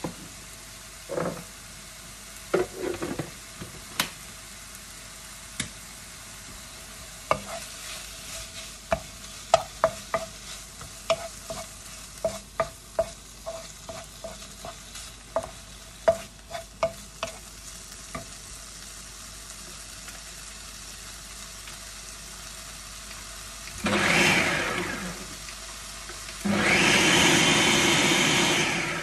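Chicken pieces sizzling in a nonstick wok while a wooden spoon stirs them, scraping and knocking against the pan in a run of sharp clicks, some with a short ringing note. Near the end a countertop blender whirs in a short burst, then starts up again and runs steadily and loudly.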